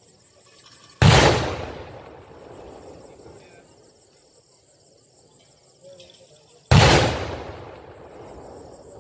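Two loud firework explosions about five and a half seconds apart, each a sharp bang followed by a rumbling echo that dies away over a second or so.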